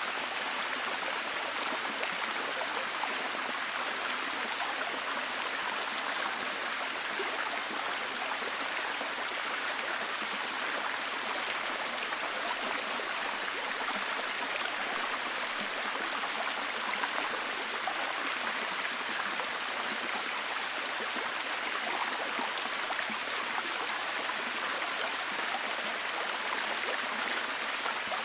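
Steady rain falling in a forest: a constant even hiss with fine, dense patter of drops throughout.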